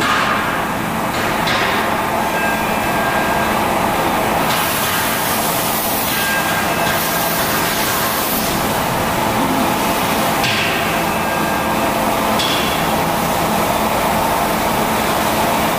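V750 CNC vertical lathe turning a brake drum casting: the chuck spinning and the tool cutting metal, a steady machining noise with stretches of sharper hiss that come and go.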